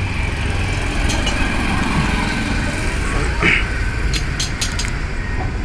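Steady low rumble of an engine idling nearby. About four to five seconds in come a few sharp clicks from the steel gearbox parts being handled.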